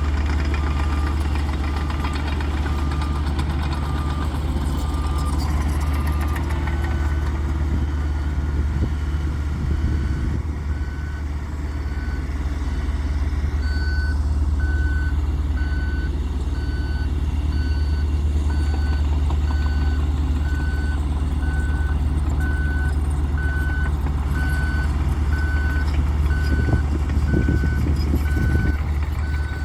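Heavy construction vehicles running with a deep steady engine rumble while backup alarms beep about once a second. One lower-pitched alarm stops about six seconds in, and a higher-pitched one takes over a second later and keeps going.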